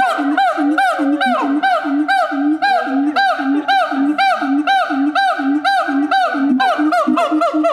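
Siamang calling: a rhythmic series of rising-and-falling whooping notes, about two a second, alternating with low booms from the inflated throat sac. The notes come faster and shorter near the end.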